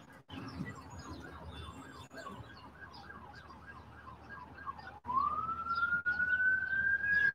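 Emergency vehicle siren: a faint fast yelp, about three sweeps a second, that switches about five seconds in to a louder, slowly rising wail.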